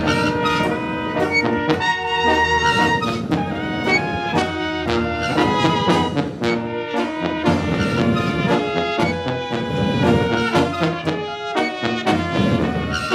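Lively brass band music, with trumpets and trombones playing quick, punchy notes over a steady beat.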